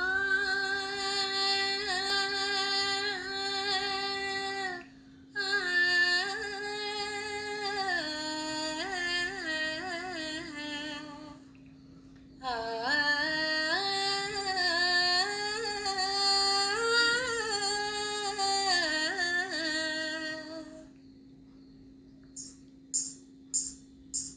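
A woman singing an old Telugu film song solo, in three long phrases with held, ornamented notes and short breaks between them. A steady low drone tone runs underneath.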